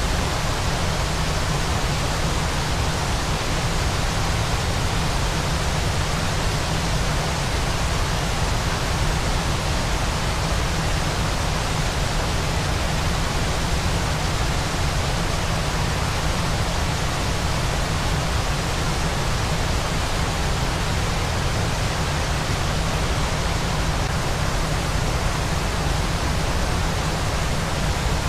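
Waterfall's steady, unchanging rushing noise, spread evenly from a deep low rumble up to a bright hiss, played as white noise.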